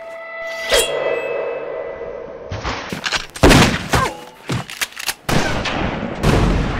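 Dubbed-in battle sound effects: a ringing metallic hit about a second in, then a rapid series of gunshots and blasts, with a deep explosion near the end.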